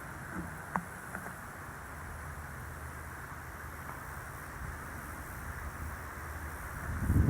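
Wind buffeting the microphone with a steady rumble, a single sharp click about a second in, and a louder gust of rumble near the end.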